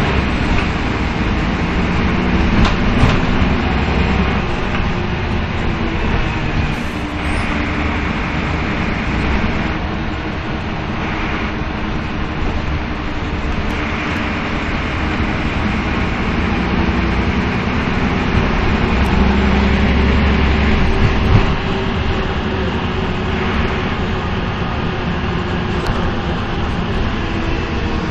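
Karosa B931 city bus with a Renault MIHR diesel engine and ZF 4HP 500 automatic gearbox, heard from inside the passenger cabin as it drives along. The engine rumble and the tyre and road noise run steadily, and the engine pitch drifts gently.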